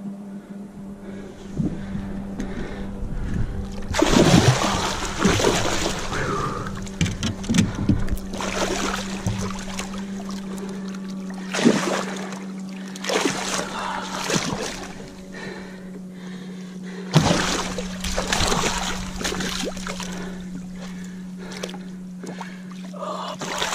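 A hooked musky thrashing and splashing at the surface beside the boat, in repeated sudden bursts, the biggest about 4, 12 and 17 seconds in. A steady low hum runs underneath.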